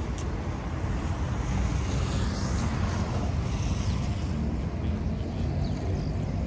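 Outdoor city ambience dominated by a steady, fluttering low rumble of wind on the microphone, over distant traffic noise.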